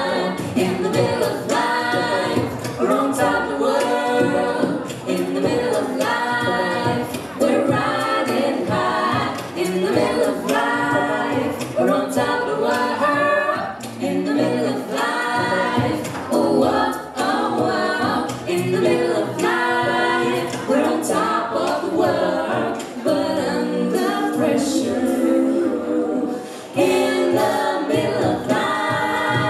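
Six-voice mixed a cappella group, three men and three women, singing in harmony without instruments, amplified through handheld microphones and a PA.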